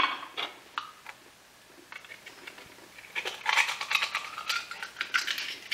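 Oyster knife scraping and clicking against oyster shells as oysters are shucked. A few clicks come in the first second, then after a pause a dense run of scraping and clicking starts about three seconds in.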